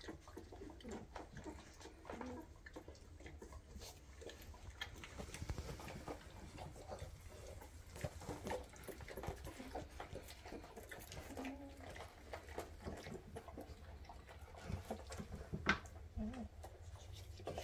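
Weimaraner puppies about two and a half weeks old nursing from their mother: faint wet suckling and smacking with rustling, and a couple of brief low whimpers. A single sharp click sounds about three-quarters of the way through.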